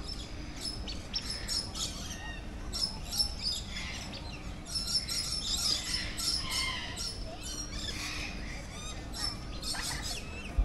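Many birds chirping and squawking at once in a dense, overlapping chorus of short, high calls, busiest about halfway through.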